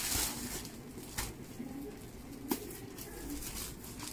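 Plastic packaging rustling and crinkling as packed clothes are handled, with a sharp tap about two and a half seconds in and a few faint low tones underneath.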